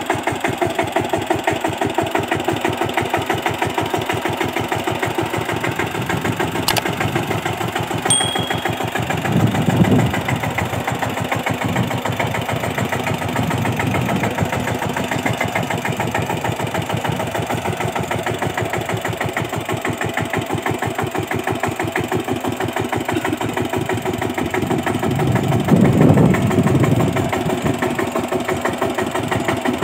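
Kamco power tiller's single-cylinder diesel engine chugging steadily as the machine drives on its cage wheels. The sound swells briefly louder and deeper twice, about ten seconds in and again near the end.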